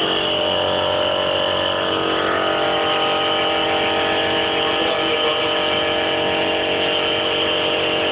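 Air horns for a motorbike, blowing one long, steady blast of several notes sounding together as a chord.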